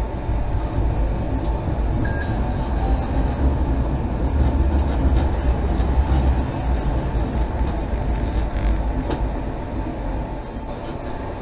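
Tram running along street track, heard from the driver's cab: a steady low rumble of steel wheels on the rails with a few light clicks.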